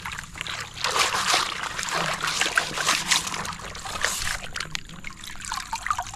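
Water sloshing and trickling with small irregular splashes, as toys are washed in water.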